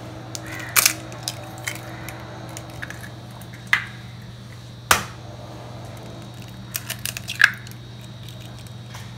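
Eggs cracked by hand into a glass mixing bowl: a few sharp, separate taps and cracks of eggshell, several seconds apart, with small crackles of shell between them.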